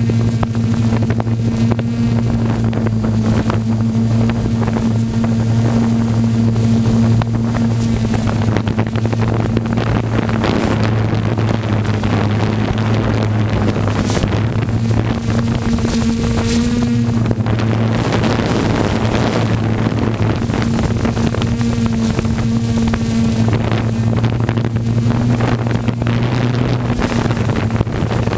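A multirotor drone's motors and propellers humming steadily, heard through its own onboard camera microphone, with wind rushing over the mic. The hum's pitch rises briefly about halfway through.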